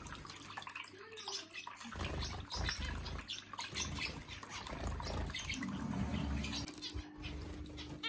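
Small electric bird-bath fountain running, thin streams of water pattering and trickling into its basin, with a low rumble through the middle.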